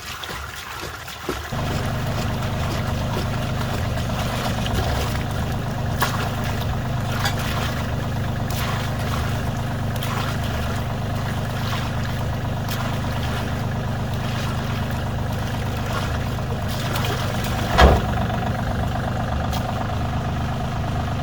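An engine running steadily at an even speed, starting abruptly about a second and a half in, with scattered light clicks and one louder knock near the end.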